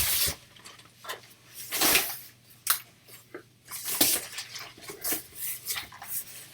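Packing material rustling and hard plastic clicking and knocking as a shipping box of CGC-graded comics is unpacked by hand: short, irregular bursts and clicks with quiet gaps between them.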